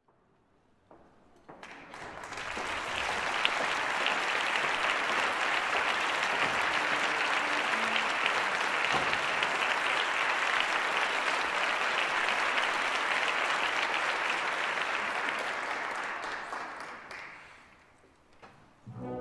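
Audience applauding, building up over the first couple of seconds, holding steady, then dying away near the end.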